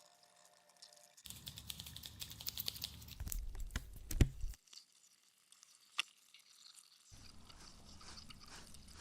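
Fingers scratching a scalp and pulling through hair close to the microphone: dense, crackly scratching in two stretches, the first louder and ending in a sharp knock about four seconds in, the second softer near the end.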